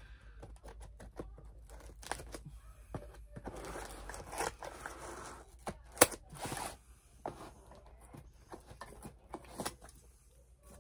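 A cardboard subscription box being opened by hand: tearing, scraping and rustling of cardboard and packing, with scattered clicks and one sharp snap about six seconds in.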